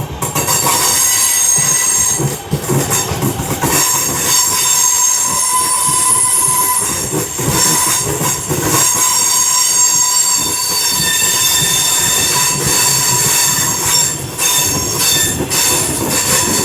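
Two coupled Class 323 electric multiple units running into the station and slowing, with rail clatter and a high-pitched squeal.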